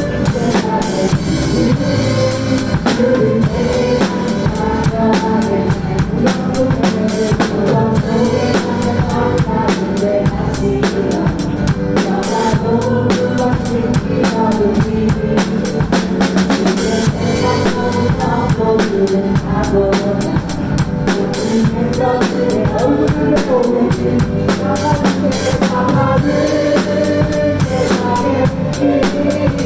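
Drum kit played along with a contemporary worship song: a steady beat on bass drum, snare and cymbals over the full band's sustained chords.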